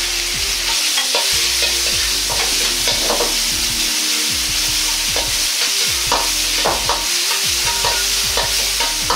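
Minced pork frying in hot oil in a wok, a steady sizzle, with a steel ladle scraping and clinking against the wok again and again as it breaks up and spreads the meat.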